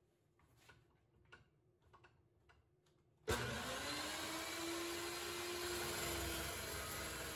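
Evolution dry-cut metal chop saw switched on about three seconds in: its motor and toothed blade start suddenly and run steadily as the blade is brought down onto square steel tube. Before that, only a few light handling clicks.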